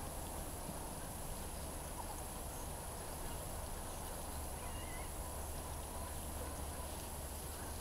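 Quiet outdoor background with a steady, high, even chirring, typical of crickets, and a couple of faint small chirps about four to five seconds in.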